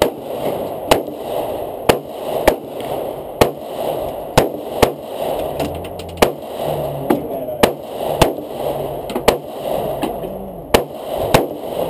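Handgun shots fired in a steady but uneven string, about seventeen sharp reports, roughly one to two a second.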